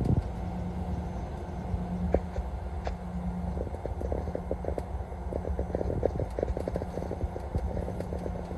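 Road and engine noise inside a vehicle cruising on a freeway: a steady low rumble with a constant drone. From about three and a half seconds in, a run of rapid, irregular light ticks joins it.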